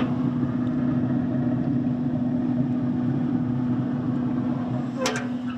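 Traeger pellet grill running on the smoke setting: a steady mechanical hum with a rushing whoosh, typical of the grill's fan blowing air through the fire pot.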